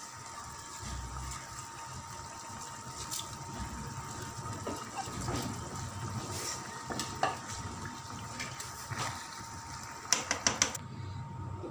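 Beef stock bubbling at the boil in a pan, with a few light scrapes. Near the end comes a quick run of sharp knocks from a slotted spatula against the pan as the rice is stirred in.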